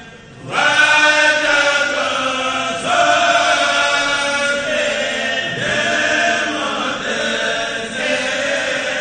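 Male kourel choir chanting a Mouride khassida in unison, unaccompanied. After a brief pause the voices come in about half a second in, with long held notes in phrases that restart every few seconds.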